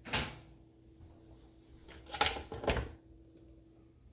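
A few hard plastic clunks and knocks as a full blender jar is handled and lifted off its motor base, two of them close together about two seconds in, over a faint steady hum.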